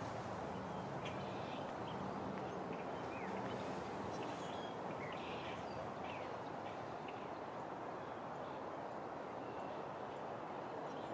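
Steady outdoor background noise with a few faint, short bird chirps, mostly in the first half.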